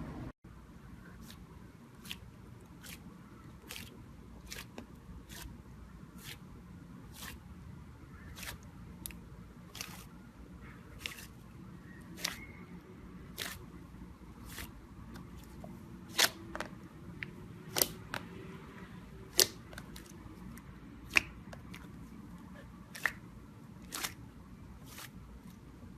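A long run of sharp, separate clicks at an uneven pace of roughly one to two a second, with several louder clicks in the second half.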